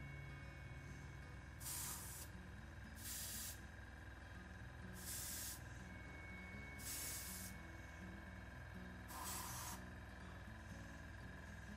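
Airbrush spraying paint in five short hissing bursts, each about half a second long and spaced a second and a half to two seconds apart.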